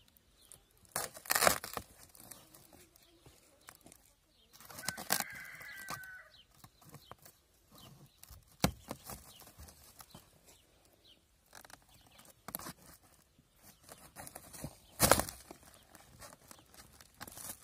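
Scissors cutting and tearing through woven plastic sack and plastic sheeting in a few sharp, scratchy bursts, the loudest about a second and a half in and again near fifteen seconds. A short bird call sounds about five seconds in.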